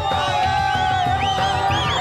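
Background music, with a long held note and short sliding high notes over it.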